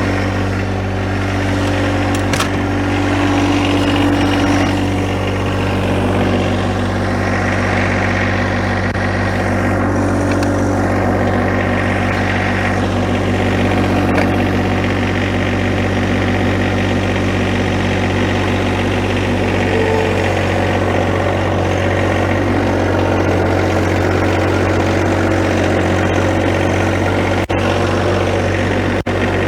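John Deere 1025R compact tractor's three-cylinder diesel engine running steadily, with slight shifts in its higher tones as the machine is worked.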